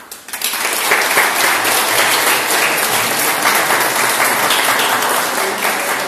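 A group of people applauding, the clapping breaking out within the first half second and keeping up steadily.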